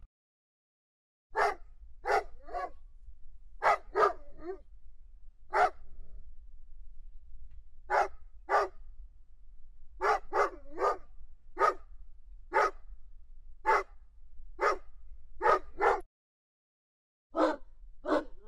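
Dogs barking repeatedly: sharp single barks and quick doubles, roughly one to two a second, over a faint low hum. The barking is cut by a short stretch of dead silence at the start and another near the end.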